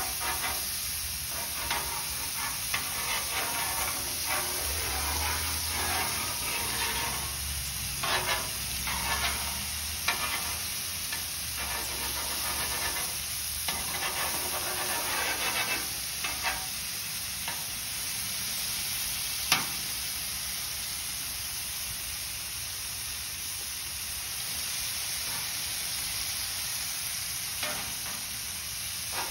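Pork steaks and butter sizzling steadily on a Blackstone flat-top griddle. Metal tongs scrape and click against the griddle top through the first half, with one sharp click about two-thirds of the way through.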